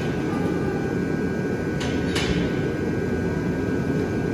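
Steady low rumble of room noise throughout, with two short light clicks about two seconds in as the Rolling Thunder grip handle is handled on the overhead bar.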